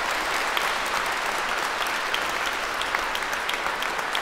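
A large congregation applauding in a church: steady clapping from many hands.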